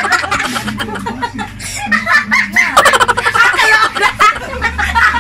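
People laughing in rapid, repeated bursts, mixed with some garbled talk.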